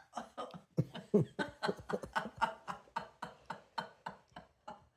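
A person laughing in a long run of short bursts, about three or four a second.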